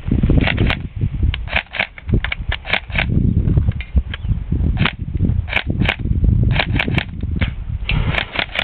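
Maruzen Type 96 airsoft gun in use: a dozen or more sharp snaps and clicks at irregular intervals, over a low rumbling noise.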